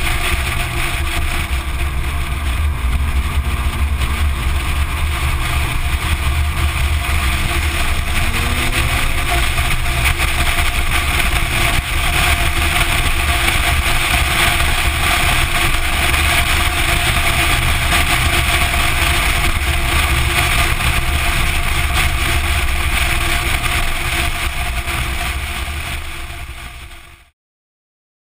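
Porsche 944 Turbo driving at speed on a circuit, heard from a camera low by the front wheel: a steady rush of wind over the microphone and road noise, with the engine running underneath. It fades out and goes silent about a second before the end.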